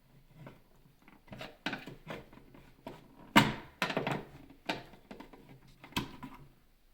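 Irregular knocks, clicks and light scrapes of hand-handled parts on a chocolate refiner's motor unit as the seal is worked off the motor drive shaft. The loudest knock comes about three and a half seconds in.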